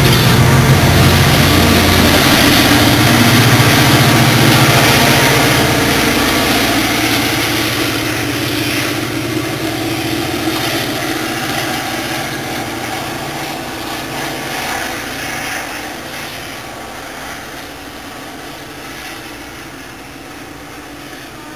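Diesel-hauled passenger train passing close and then pulling away: the low locomotive engine note and the rumble of the cars fade steadily until the train is far off.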